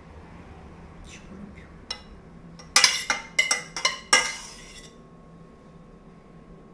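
A metal utensil clinking against a stainless-steel pan while rabbit and onion sauce is scooped out onto a plate. There are a couple of light clicks, then about three seconds in a quick run of about six sharp, ringing metal clinks over two seconds.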